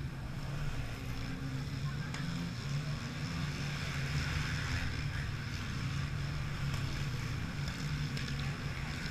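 Engine running with a steady low hum, unchanging in pitch, over a broad noisy haze.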